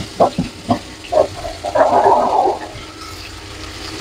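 A ladle stirring sliced onions in hot oil in a nonstick kadai: a few quick knocks in the first second, then about a second of scraping and stirring near the middle.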